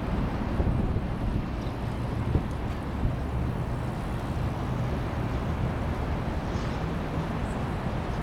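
Steady low rumble of a freight train rolling along the tracks far below, mixed with wind on the microphone.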